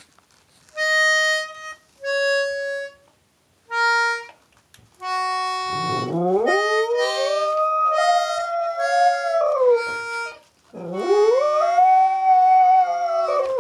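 A small toy piano accordion plays three short held notes, then sustained chords, while a dog howls along twice, each long howl sliding up from a low start, holding, and falling away at the end.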